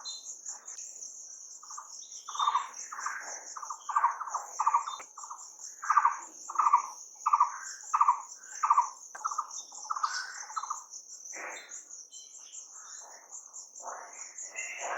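Birds calling, with a run of loud, evenly repeated notes in the middle, over a steady high-pitched insect trill of crickets.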